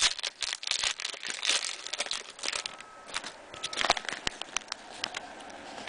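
Crinkling and crackling of a trading card pack wrapper being handled and torn, with the light irregular clicks of cards being shuffled.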